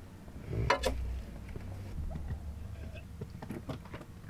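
Quiet handling of kitchenware on a wooden counter: one sharp knock just under a second in as a frying pan is set down, then faint small clicks and rustling.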